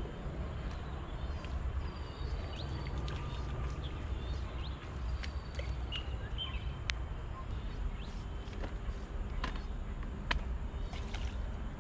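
Outdoor ambience: a steady low rumble under scattered short, high bird chirps and a few sharp clicks.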